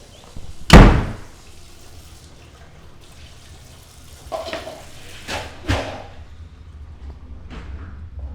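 A loud slam a little under a second in, followed by three or four softer knocks or bumps.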